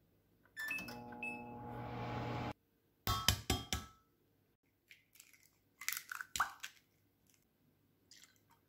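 A microwave oven runs with a steady hum for about two seconds and cuts off abruptly. Then an egg is knocked several times against the rim of a glass Pyrex measuring jug, sharp clicks, and a few seconds later its shell is cracked open into the jug with a second short run of crackling clicks.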